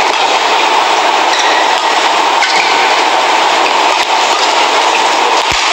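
Steady crowd noise in a badminton arena, with faint sharp pops of rackets hitting the shuttlecock through the noise.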